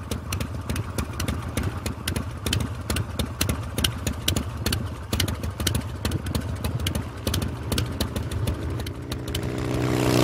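Motorcycle engine idling: a steady low running sound with a rapid, uneven ticking beat, growing louder near the end.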